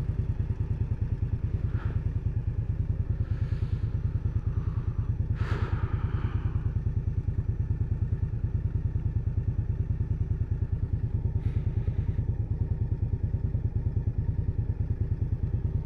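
Indian Scout Bobber's liquid-cooled V-twin engine idling with a steady, even pulse that holds the same pitch throughout, with a few faint brief traffic sounds over it.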